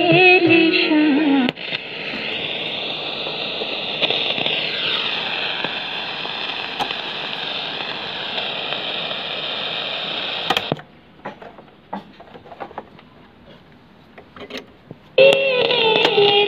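A National Panasonic radio cassette recorder: its music stops with a click about a second and a half in, and the set's speaker then gives a steady hiss of radio static with faint whistles sliding in pitch as it is tuned. The hiss cuts off about two-thirds through, a few switch clicks follow, and music from a radio station comes in near the end.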